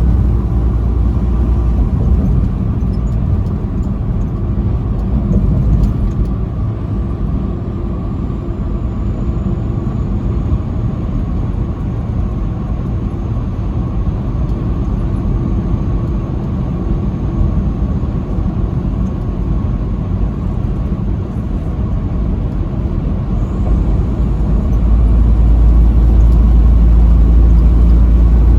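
A truck's engine and road noise while driving, a steady low rumble that gets louder about three-quarters of the way through.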